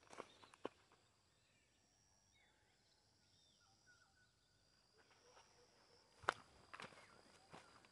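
Near-silent rural field ambience: faint bird chirps in the middle, a thin steady high tone, and a few soft knocks near the start and again from about six seconds in, the loudest about six seconds in.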